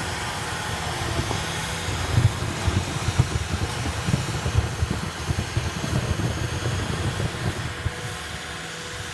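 CAT 259D compact track loader's diesel engine running steadily under load, driving a snowblower attachment that throws snow, with uneven low surges through the middle and the sound easing slightly near the end as the machine moves off.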